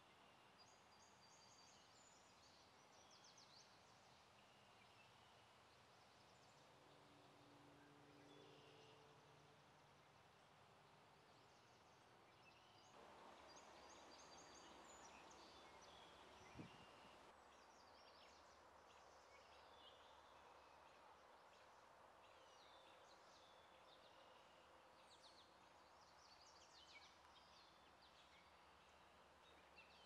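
Faint outdoor marsh ambience: distant small birds chirping and trilling on and off over a low steady hiss. A faint low hum sounds briefly about a quarter of the way in, and there is a single sharp click a little past the middle.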